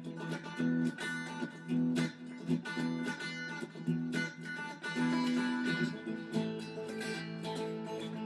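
Background music played on guitar, with plucked and strummed notes.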